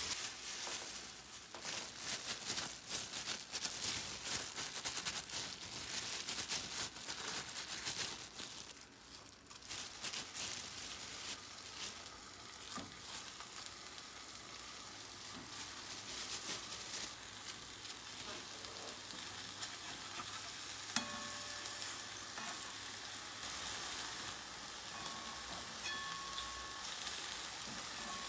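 Food frying in hot oil in a pan: a dense crackling sizzle for the first several seconds that settles into a steadier, quieter sizzle.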